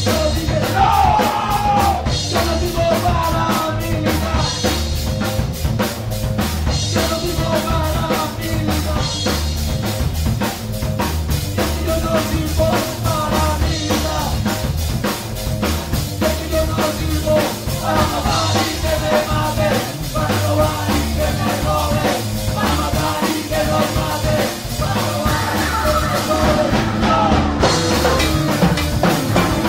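Live rock band playing: electric guitar and drum kit with a steady, driving beat.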